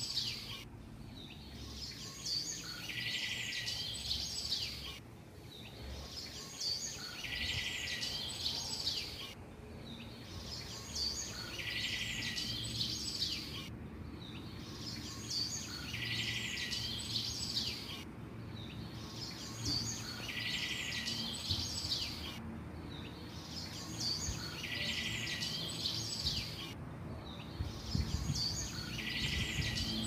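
Birdsong: the same short chirping phrase repeats identically about every four seconds, over a low rumble.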